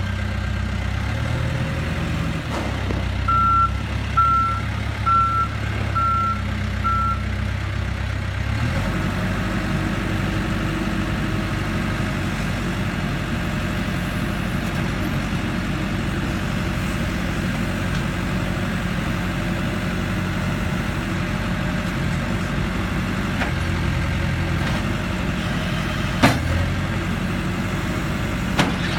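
Case 580N loader backhoe's diesel engine running steadily, with its backup alarm beeping five times about once a second while the machine reverses; the engine note changes about nine seconds in. Two sharp clicks near the end.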